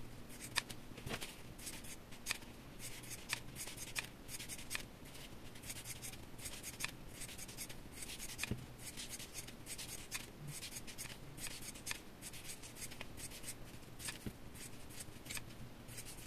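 Scissors snipping through a sheet of EVA craft foam, cutting it into thin fringe strips: a run of quick, irregular, crisp snips.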